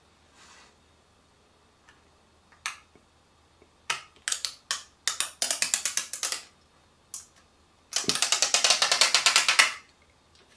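Clear protective film being peeled off a freshly applied OtterBox glass screen protector, crackling off the adhesive in rapid, evenly spaced clicks, about a dozen a second. It comes in two runs, the second and louder one near the end, after a few single clicks.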